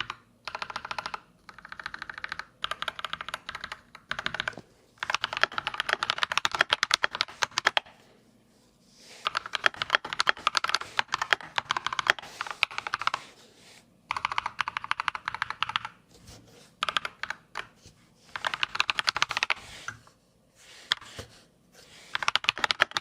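Typing on a mechanical keyboard fitted with Akko CS Wine Red pre-lubed linear switches: fast runs of key presses lasting a second or few, broken by short pauses.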